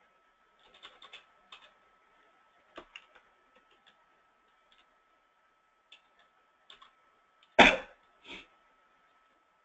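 Scattered keystrokes and clicks on a computer keyboard, as a value is typed into a field. About three-quarters of the way through comes one much louder short noise, followed by a softer one.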